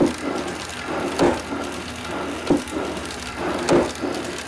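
A homemade magnet torque amplifier rig running, driven by a Sanyo Denki DC geared motor, with a steady mechanical clatter and a sharp knock a little over once a second. The knock is the output slider hitting at one end of its back-and-forth stroke, because one side is a little weaker than the other, which costs energy.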